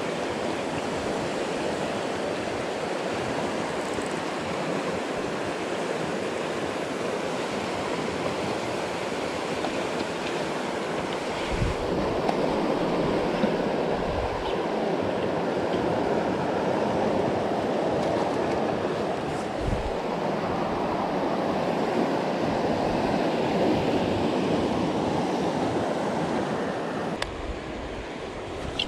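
Fast river current rushing over a rock bar: a steady rush of water that grows a little louder about twelve seconds in. A few brief low thumps on the microphone stand out from it.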